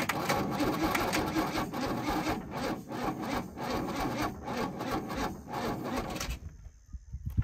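Starter motor cranking a 1976 HX Holden ute's engine over in a rhythmic churn for about six seconds, then stopping without the engine firing. The ignition timing is off, and the distributor is still loose.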